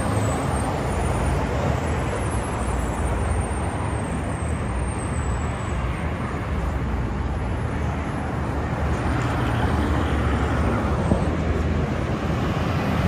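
Steady road traffic noise from a busy city street.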